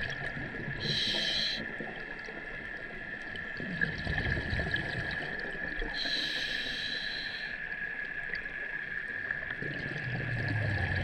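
Scuba diver's regulator breathing, heard underwater: two hissing inhalations about five seconds apart, with bubbling exhalations rumbling between them, over a steady high tone.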